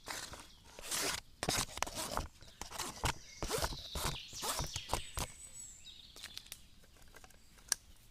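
Knife chopping an onion on a board: a run of irregular cuts and knocks for about five seconds, then a lull with a single click near the end.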